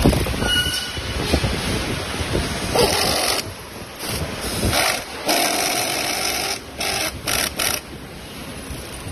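Irregular rustling and handling noise over a steady hiss, with a few low knocks, as hands work on a scooter's kickstand and rear brake cable.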